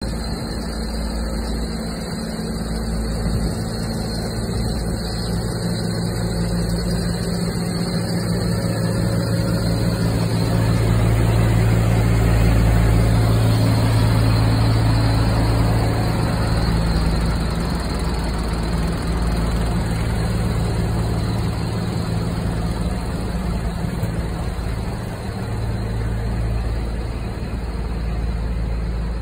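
Scania truck's diesel engine idling steadily, a low hum that grows louder for several seconds in the middle, then eases back.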